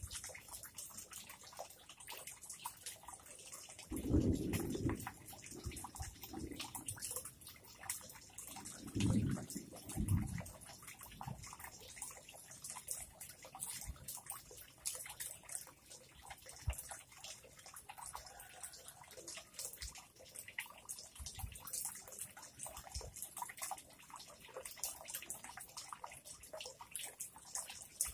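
Dry grass stems crackling and rustling as they are woven by hand, over water dripping and trickling into a pond. Two louder soft low bumps come about four and nine seconds in.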